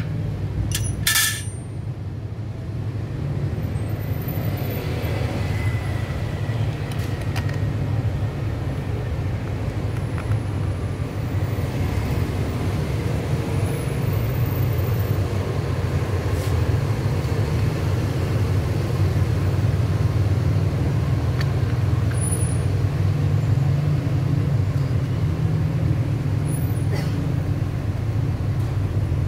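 Steady low rumble of outdoor background noise, with a sharp metallic click about a second in and a few fainter ticks from hands working on a licence-plate bracket.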